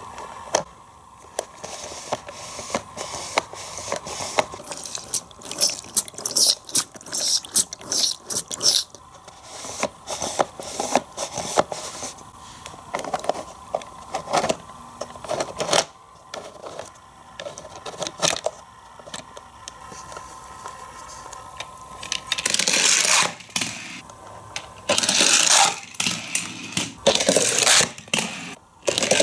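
Hot Wheels Race & Rinse car wash playset working: rapid plastic clicking and rattling as a die-cast car is carried down through the wet wash tower. Near the end come three longer scraping sounds of about a second each.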